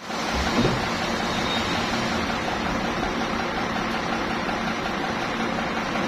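An engine running steadily with a dense mechanical noise and a faint steady hum, typical of sawmill machinery at work; a brief low thump sounds about half a second in.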